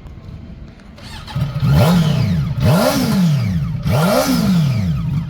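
800 cc four-cylinder motorcycle engine with an underbelly exhaust, idling and then revved in three throttle blips. Each blip rises and falls in pitch over about a second.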